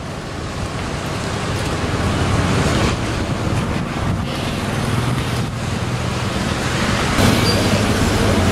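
Steady rushing street noise with a low hum underneath and wind on the microphone, slowly growing louder.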